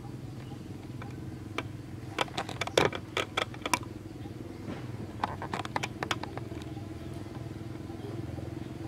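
Steady low engine hum, like a motor vehicle running nearby, with two short clusters of sharp clicks and crackles about two and five seconds in.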